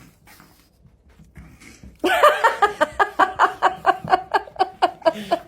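A person laughing hard, starting suddenly about two seconds in, in rapid bursts of about five a second.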